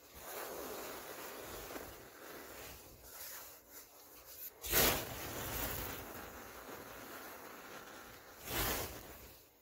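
Powder and crumbling clumps of packed powder falling into a plastic tub, a soft grainy hiss, with two louder bumps, about five seconds in and near the end.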